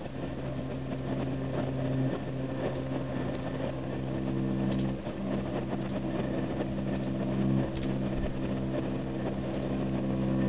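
Train running, heard from inside the carriage: a steady rumble with a low hum of several tones that shifts every few seconds, and a few faint clicks.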